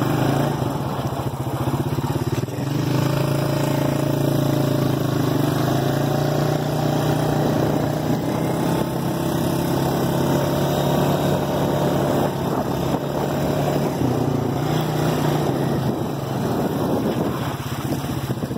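ATV engine running under way, a steady drone whose pitch shifts a little up and down with the throttle.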